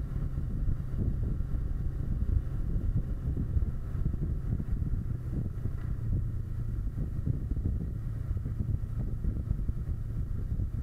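Kawasaki Versys 650 parallel-twin engine running at a steady road speed, mixed with low, gusty wind buffeting on the microphone.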